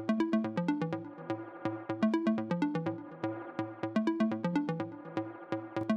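Background electronic music with a steady drum-machine beat and a repeating synth bass and melody line.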